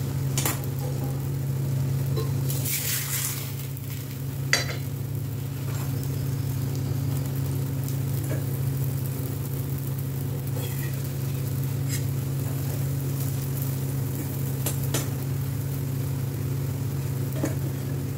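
Parathas cooking on hot iron tawas: soft sizzling over a steady low hum, with a few sharp utensil clinks against the pans and bowl, the loudest about four and a half seconds in.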